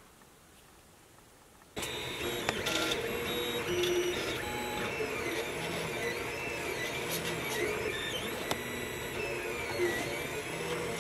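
FDM 3D printer printing: its stepper motors whine in a changing pattern of short steady tones and rising and falling pitches as the print head moves. It starts suddenly about two seconds in, after faint room tone.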